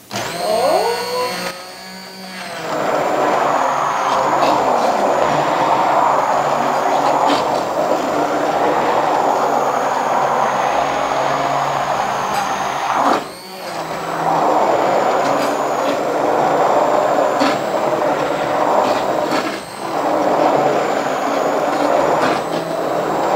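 Corded immersion blender puréeing pumpkin soup in a stainless steel pot: the motor whines up to speed, then runs steadily with the soup churning around the blade, letting off briefly about 13 seconds in and again near 20 seconds before stopping.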